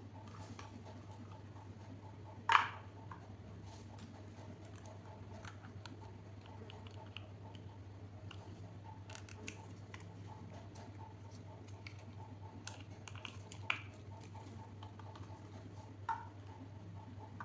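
Small plastic miniature toy kitchen pieces being handled: scattered light clicks and taps, with one sharper knock about two and a half seconds in, over a steady low hum.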